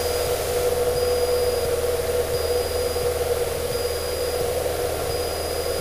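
Cessna 152's four-cylinder Lycoming O-235 engine running steadily at climb power, a steady drone heard from inside the cockpit.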